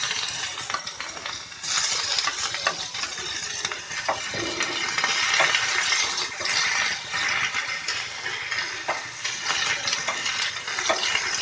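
Chopped onion sizzling in hot oil in a small tadka pan, with the stirring spoon clinking against the metal pan a few times.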